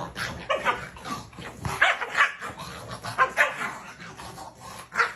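A dog giving a series of short, irregular barks and yips.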